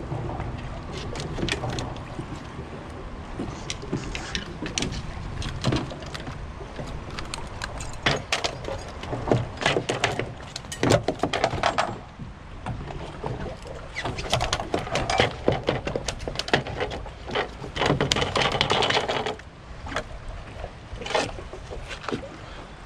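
A sheepshead being handled on a fibreglass skiff deck: clusters of knocks, slaps and rattles, busiest in two stretches through the middle, over steady wind noise on the microphone.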